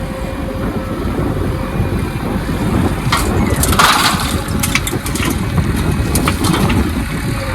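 Diesel engine of heavy earthmoving machinery running steadily, with a run of crunching and clattering impacts from about three seconds in, like a bucket working soil and stones.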